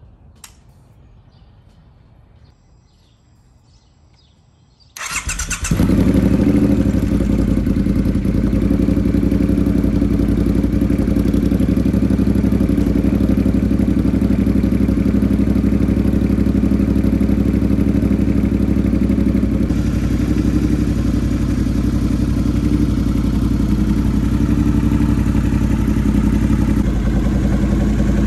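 Triumph Thruxton R's 1200 cc parallel-twin engine starting about five seconds in, after a few faint clicks, then idling steadily.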